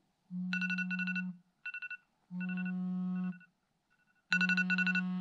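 Smartphone alarm going off to wake the owner: a rapid beeping tone over a low steady buzz, sounding three times about two seconds apart, with short runs of beeps in between.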